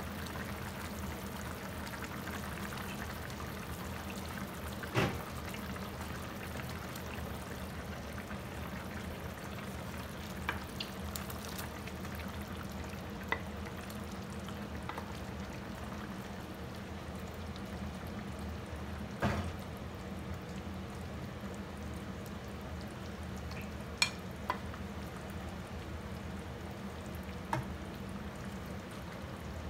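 Pork adobo simmering in a frying pan with a steady sizzle. A few sharp knocks and clinks of cookware against the pan break in, the loudest a little past the middle.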